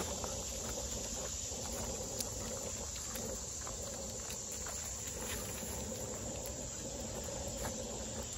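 Footsteps and dogs' paws on a wood-chip and leaf-litter trail, many small scattered crunches and patter, over a steady chorus of insects in the woods.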